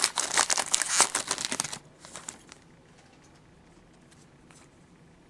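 Foil wrapper of a trading-card pack crinkling and tearing as it is handled and opened, a dense crackle that stops about two seconds in.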